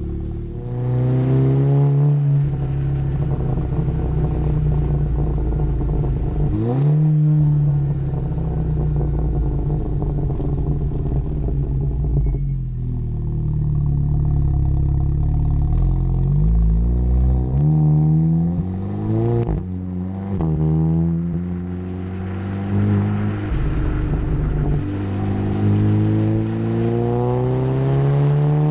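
Seat Leon Cupra's turbocharged 2.0-litre four-cylinder engine breathing through a Milltek Sport exhaust, accelerating hard through the gears: the note climbs in pitch and drops at each DSG gear change, with a run of quick rev changes about two-thirds of the way through.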